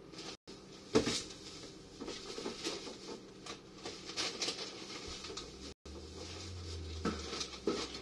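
Irregular light knocks, taps and clatters, the loudest about a second in, like small objects being handled in a kitchen. A brief low hum sounds at about six seconds.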